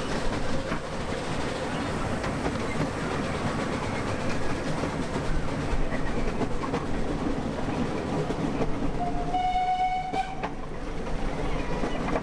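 Miniature park railway train running, heard from an open carriage: a steady rumble and clatter of the wheels on the track. About three-quarters of the way in, the locomotive sounds one high, steady signal tone for just over a second.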